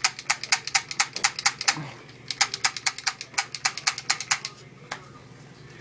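Toy pistol clicking rapidly, about six clicks a second, in two runs with a short break about two seconds in.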